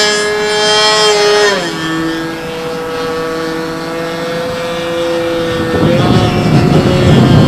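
Remote-control P-51 Mustang model's engine whining in flight, dropping in pitch about one and a half seconds in, then rising again and growing louder and rougher about six seconds in. The pilot says the carburetor isn't right and it won't reach full throttle.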